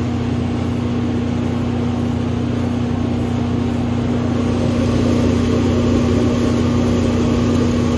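Spray booth exhaust fan motor running with a steady hum, while an aerosol spray paint can is dusted over a stencil in short hissing bursts.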